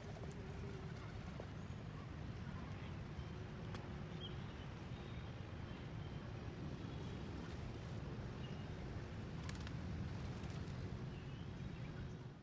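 Outdoor ambience: a steady low rumble of background noise with a few faint, short bird chirps. The sound fades out at the very end.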